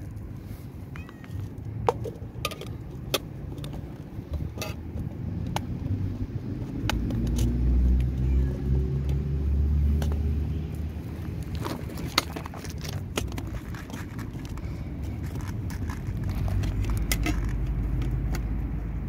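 A motor vehicle passing, a low engine rumble that swells about seven seconds in and again near the end. Scattered sharp clicks and crunches of loose gravel stones run through it.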